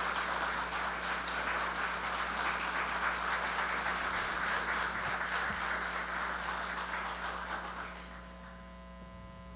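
Audience applauding, dying away about eight seconds in and leaving a faint steady electrical hum.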